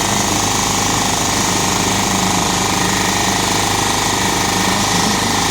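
Construction machinery running with a fast, steady hammering that does not let up.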